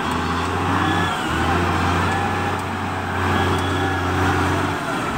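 SDLG wheel loader's diesel engine running steadily under load as the machine drives forward, pushing soil with its lowered bucket. The engine drone dips briefly about a second in and again near the end, with a faint high whine rising and falling above it.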